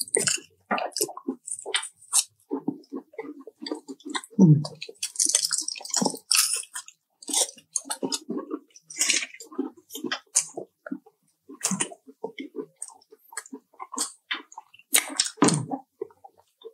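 Close-miked chewing and wet mouth sounds of people eating chocolate, in irregular smacking bursts.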